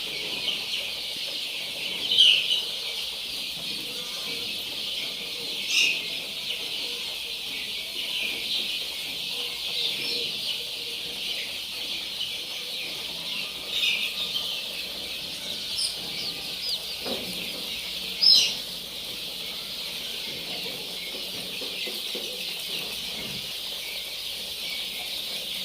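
A large crowd of day-old Kadaknath chicks peeping continuously, with a few louder individual cheeps standing out.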